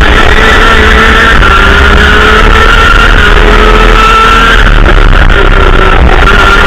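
Two-stroke racing kart engine heard loud and close from the onboard camera, held at full throttle with its pitch rising slowly down the straight, then falling about four and a half seconds in as the kart slows for the next bend.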